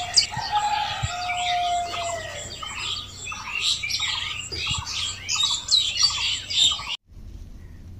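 Several birds chirping and whistling at once in a dense, overlapping chorus, which cuts off suddenly about seven seconds in.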